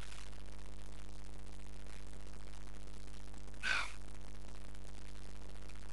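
One short breath, a gasp or sigh from a person, a little past the middle, over a steady low electrical hum and hiss.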